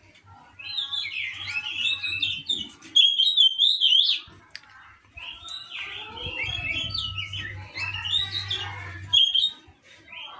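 Oriental magpie-robin (kacer) singing a run of varied, quick whistles and chatters, breaking off for about a second midway and then resuming.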